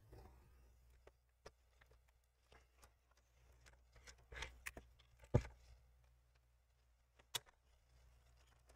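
Faint scattered clicks and taps of a plastic pry tool working a laptop's plastic screen bezel loose from its adhesive, with one sharper click about five seconds in and another near the end, over a low hum.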